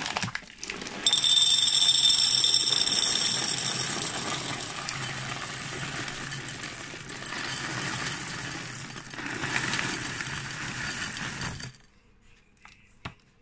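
Dry honey beans poured in a steady stream into an empty ceramic bowl, a continuous rattling patter of hard beans hitting the bowl and each other. A high ring sounds over the first few seconds, and the pour stops abruptly near the end.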